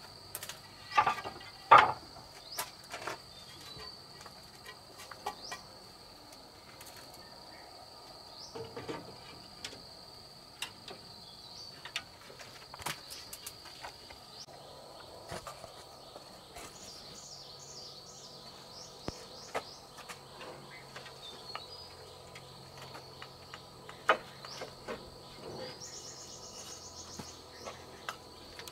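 Clay roof tiles clacking and knocking as they are handled and set by hand on bamboo battens: sharp clacks about one and two seconds in, scattered lighter clicks after, and another clack near the end. A steady high-pitched insect drone runs underneath.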